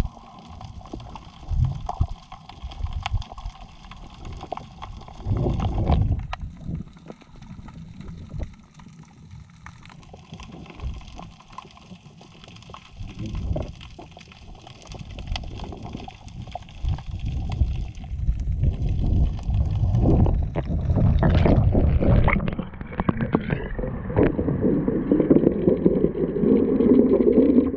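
Water gurgling and sloshing around a GoPro camera in its waterproof housing as it moves underwater, with many small knocks against the housing. Near the end the noise grows louder and busier as the camera comes up out of the water.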